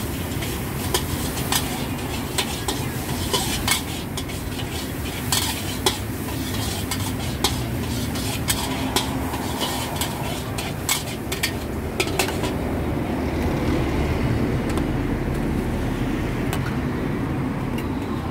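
A metal ladle stirring and scraping through thin gravy in a large steel wok, with frequent sharp clinks against the pan for the first twelve seconds or so, fewer after. A steady low rumble runs underneath.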